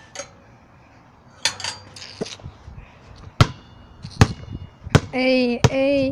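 Basketball being dribbled on concrete: four sharp bounces about 0.7 s apart, starting about halfway through. Over the last bounce a voice sings a few held notes.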